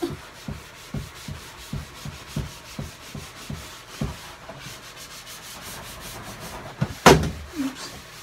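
Scouring side of a sponge scrubbing a plastic dresser top in circular strokes, a rhythmic rubbing at about two strokes a second that evens out into steadier rubbing. A sharp knock about seven seconds in.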